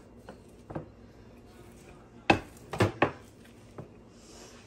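Wooden rolling pin working dough on a bamboo cutting board, with a few light clicks and then three sharp wooden knocks in quick succession a little over two seconds in, as the pin and board bump together.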